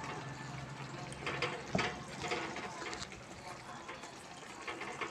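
Fried pointed gourd pieces being tipped from a steel bowl into a wok of simmering gravy: a wet, bubbling sound with several soft knocks and plops as the pieces and the bowl hit the wok, mostly between about one and three seconds in.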